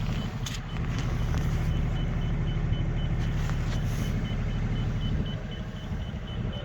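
Yacht's engine running with a steady low rumble, under a faint, fast-repeating high electronic beep: the depth sounder's shallow-water alarm, set off in water under about two metres.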